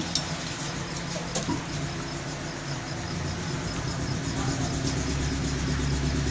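An engine running steadily at idle, a low hum that grows louder about five seconds in.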